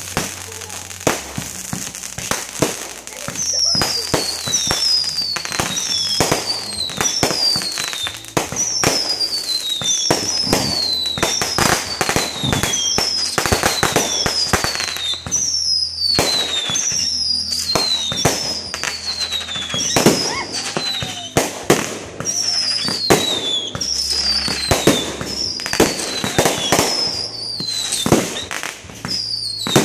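Fireworks display going off: a rapid, dense run of bangs and crackling bursts. From a few seconds in, a short falling whistle repeats about once a second.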